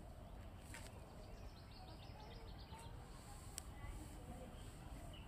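Faint outdoor ambience: a low steady rumble, with a short quick series of bird chirps about one and a half seconds in and a couple of soft clicks.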